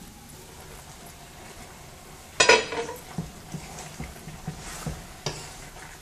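A metal pot lid clanks down with a ringing sound about two and a half seconds in. Then a wooden spoon stirs a pot of simmering chicken-gizzard stew, knocking and scraping against the metal pot about two or three times a second.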